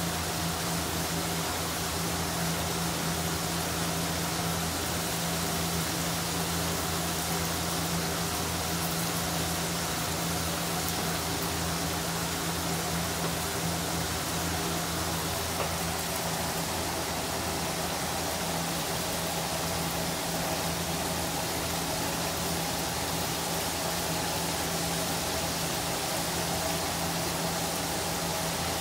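Whole fish deep-frying in a wok of hot oil: a steady, even sizzle of bubbling oil, with a steady low hum underneath.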